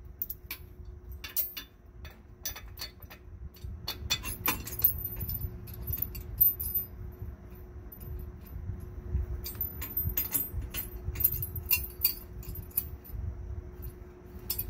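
Steel bolts and flat washers clinking against each other and the steel bracket as they are fitted by hand into the rear axle housing, in scattered clusters of light metallic clicks over a low background rumble.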